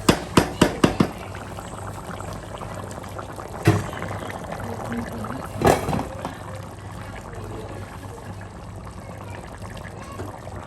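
A pot of liquid boiling with a steady hiss. A quick run of sharp knocks, about three or four a second, stops about a second in, and two single knocks follow a few seconds later.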